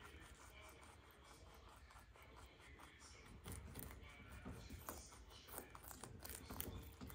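Two baby rabbits nibbling leaves: faint, quick crunching clicks, with a few louder ones in the second half.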